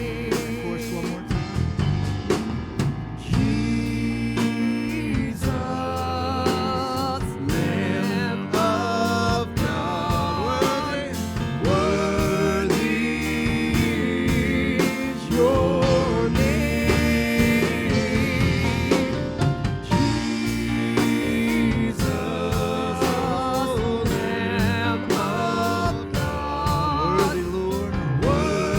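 Live gospel worship music: a band with a steady drum kit beat under a singing voice.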